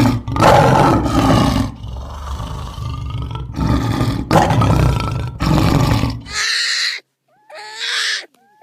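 A big cat roaring in several long, deep, rasping roars. Near the end the roaring stops and two short, high-pitched calls from a different animal follow, with silence between them.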